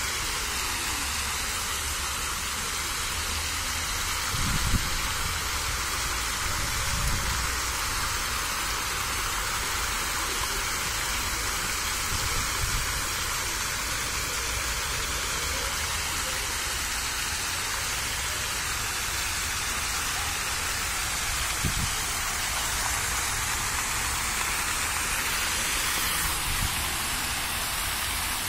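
Water jets of a park fountain splashing steadily into the stone basin, making an even, rain-like hiss, with a few brief low bumps, the loudest about five seconds in.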